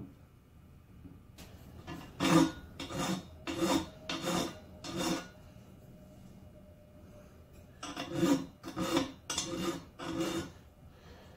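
Delta compound miter saw's cast miter turntable being swung back and forth on its base, metal scraping and rubbing against metal in short strokes: five strokes, a pause of a few seconds, then five more. A light knock comes right at the start.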